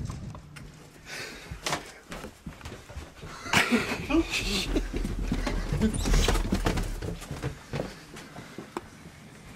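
A person panting and making voice sounds without words, over the knocks and rustle of a camera carried in a hurry. A louder stretch of rumbling handling noise comes in the middle.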